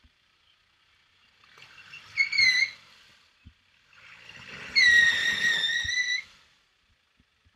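Land Rover Defender 90 clawing up a rock step in a stream, with two high-pitched squeals: a short one about two seconds in and a longer, louder one around five seconds in. Each comes with a burst of engine rumble and splashing water.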